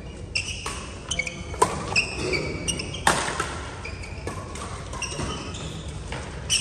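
Badminton rally: several sharp racket hits on a shuttlecock, the loudest two about a second and a half apart, among short high squeaks of sports shoes on the court floor, echoing in a large sports hall.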